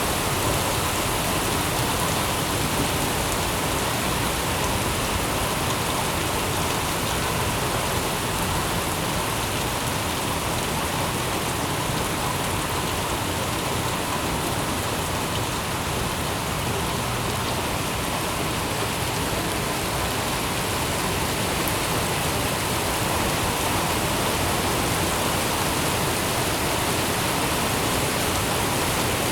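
Steady rain falling on city surfaces, an even hiss of drops with no breaks or gusts.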